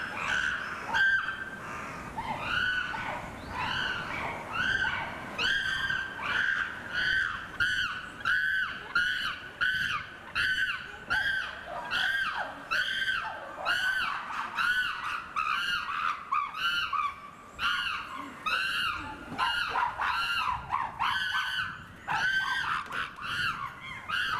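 Chimpanzees calling: a long, rhythmic run of high, rising-and-falling screaming calls, about one and a half a second, with more than one voice overlapping at times.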